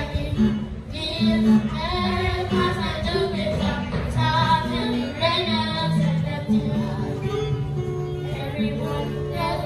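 Children singing a song together, amplified through a microphone, over musical accompaniment with steady low notes.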